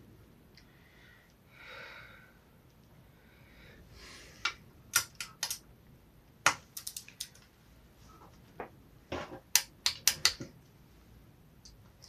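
Sharp metallic clicks and clinks of a hand tool on a motorcycle engine as a cam chain guide bolt is torqued up, coming irregularly in small clusters from about four seconds in.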